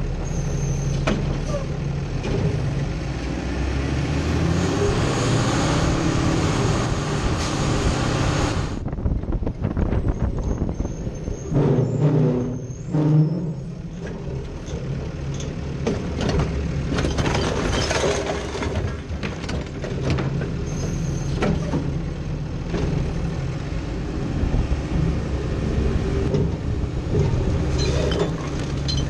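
Autocar WX64 Heil Rapid Rail side-loader garbage truck heard from inside its hopper: the engine runs steadily under a long hiss that cuts off suddenly about nine seconds in. Clanks and knocks from the hopper run throughout, loudest about twelve seconds in.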